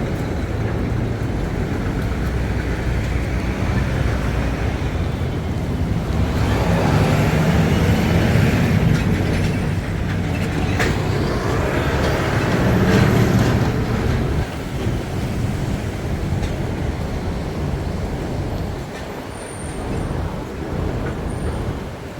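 Busy city street traffic: heavy vehicle engines rumbling past, loudest for several seconds mid-way, with faint high squeals over the top.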